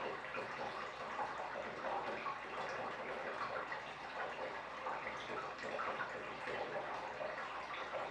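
Tap water pouring and splashing steadily into a 180-gallon glass aquarium as it fills.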